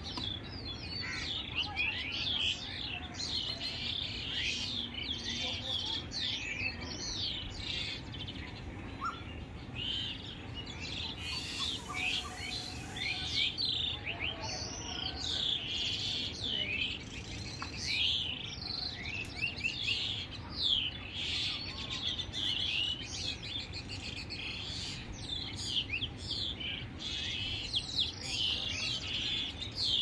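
Morning chorus of many birds chirping and twittering at once, a continuous tangle of quick, overlapping rising and falling notes.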